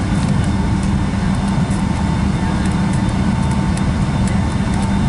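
Cabin noise of a Boeing 757-200 taxiing: a steady low hum of the engines at idle with a faint steady whine over it, and light rattling ticks from the cabin.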